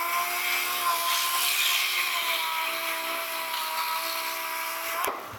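Handheld power tool running with a steady whine and a hiss, its pitch sagging slightly about two seconds in, then cut off suddenly near the end.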